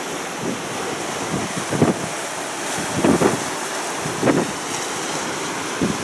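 Wind buffeting the microphone in several strong gusts, over the steady wash of surf breaking on a rocky shoreline.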